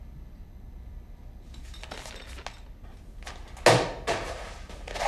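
A sudden heavy thud a little past halfway, followed by two softer knocks, over a low steady hum with a few faint scuffs before it.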